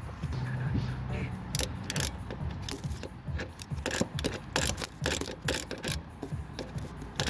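Irregular metallic clicks and clinks of hand tools working on the car, several a second.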